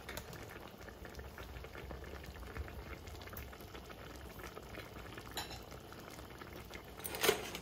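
Thick coconut-milk curry gravy simmering in a large aluminium pan, bubbling and popping steadily. A short, louder clatter comes near the end.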